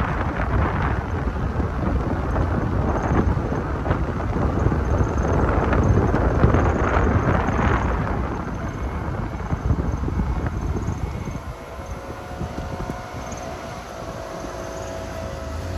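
A car driving, with road rumble and wind buffeting. The noise eases about eleven seconds in, and a faint steady hum comes in near the end.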